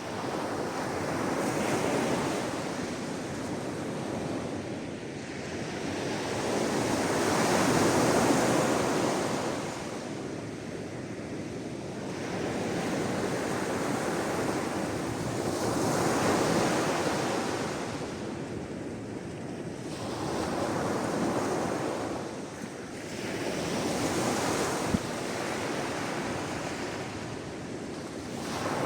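Sea waves washing onto the shore in slow swells, each surge rising and falling over several seconds, about five in all, with a short sharp click about 25 seconds in.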